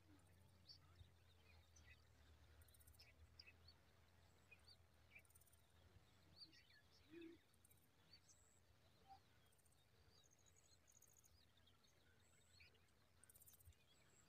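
Near silence: faint outdoor background with scattered short, faint bird chirps and a low hum.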